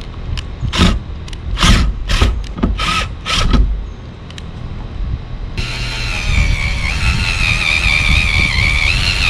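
Cordless drill starting a little past halfway and running with a steady, slightly wavering whine as it bores corner holes through the van's sheet-metal roof. Before it come a few short, sharp noises over a low rumble.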